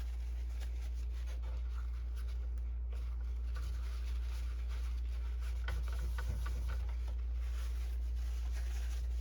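Paper towel rubbing and lightly scratching on a plastic inkjet cartridge as spilled ink is wiped off it, with soft scattered scrapes. A steady low hum runs underneath and is the loudest sound.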